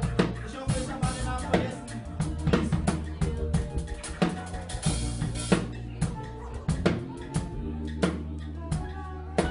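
Live band playing an instrumental passage: an acoustic drum kit keeps a busy beat of kick, snare and cymbal hits over held low bass notes.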